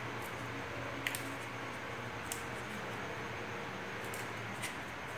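Faint handling sounds of fingers pinching and pressing a contact-glued piece of EVA foam closed, with a few light clicks, over a steady low hum of room noise.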